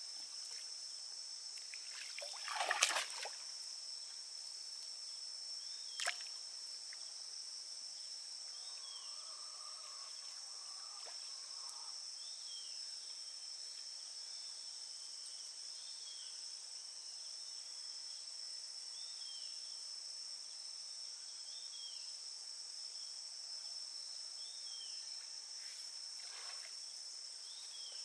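Steady high-pitched drone of insects, with a splash of water about two to three seconds in as the hand-thrown cast net lands on the lake. A sharp click follows a few seconds later, and faint short chirps repeat about every second and a half in the second half.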